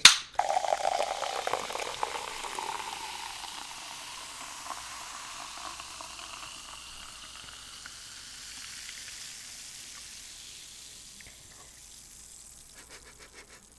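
A can of peach sparkling water cracked open with a sharp pop, then fizzing with a steady hiss that slowly dies away.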